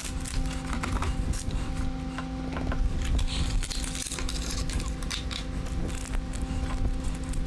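Light clicks, taps and scrapes of computer parts and packaging being handled, over a steady low hum.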